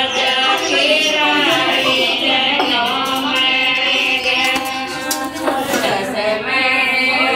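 Group of women singing a Gangaur puja song together, their voices overlapping in a steady, continuous melody.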